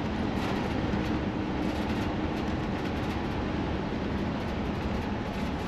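Steady road and drivetrain noise inside a Tiffin motorhome's cab cruising at highway speed: tyre and wind rumble with a faint low engine hum, even throughout.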